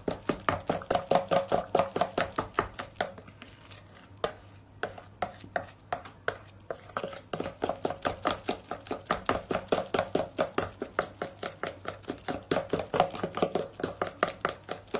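Hand whisk beating runny cake batter in a bowl, its wires clicking against the bowl's side several times a second in a fast, even rhythm that slackens for a few seconds near the middle.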